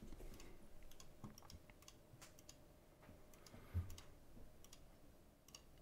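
Faint, scattered clicks of a computer mouse, with one soft low thump about four seconds in.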